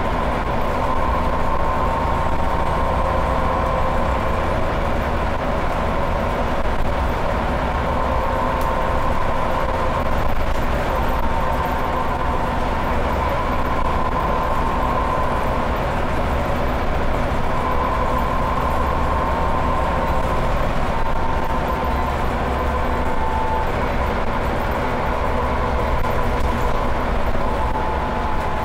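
Scania OmniCity single-deck bus heard from inside the saloon while running at speed: a steady engine drone and road rumble, with a high whine that comes and goes.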